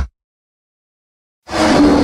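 Dead silence for over a second, then about one and a half seconds in a loud creature roar sound effect starts abruptly and keeps going.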